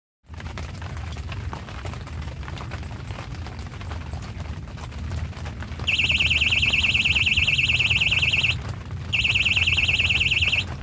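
Electronic fishing bite alarm sounding a rapid, continuous run of high beeps for about two and a half seconds, breaking off briefly, then sounding again: a fish has taken the bait and is pulling line. A steady low rumble runs underneath.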